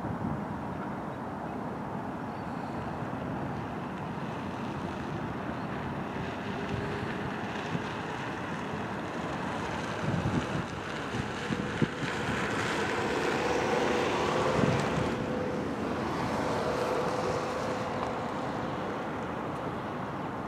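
Wind rumbling on the microphone over a steady wash of surf. In the second half a faint motor hum rises and fades, with a couple of short knocks just before it.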